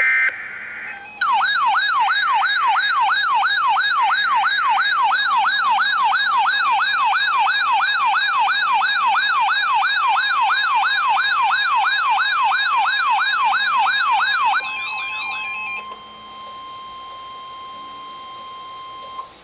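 Emergency Alert System alert tones: a short burst of data tones, then a loud electronic siren-like attention tone that sweeps up in pitch about three times a second for some thirteen seconds. It gives way to a quieter steady single tone for the last few seconds.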